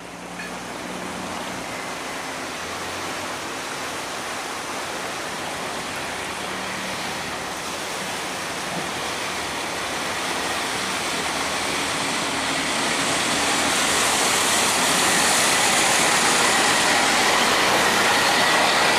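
Wooden cargo boat's engine running hard against a strong current, mixed with the rush of water pouring through a sluice gate. The sound grows steadily louder, swelling most over the last several seconds.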